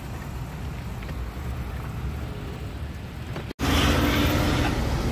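Low, steady rumble of wind on the microphone and tyres rolling on pavement as a bicycle is ridden. A sudden cut about three and a half seconds in brings louder street traffic noise.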